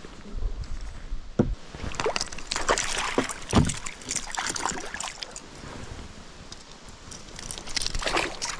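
A small hooked fish thrashing and splashing at the water surface as it is held up on the line, with a run of splashes a few seconds in and another near the end.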